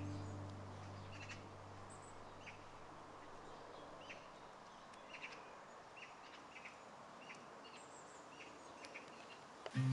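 Birds chirping in the countryside: short, scattered chirps, one or two a second, over a faint steady background hiss. A low held music note fades out during the first few seconds.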